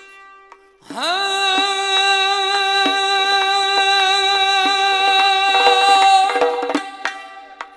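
Male voice holding one long sung note, sliding up into it about a second in and holding it for about five seconds, over strokes on a doira frame drum; after the note ends near the end, the drum and a plucked long-necked lute carry on.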